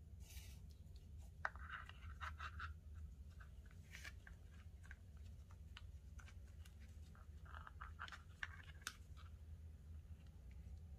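Faint scratching and rustling of thin nylon micro cord being pulled along and through a woven paracord bracelet. Small clicks come in two clusters, about a second and a half in and again near eight seconds, over a low steady hum.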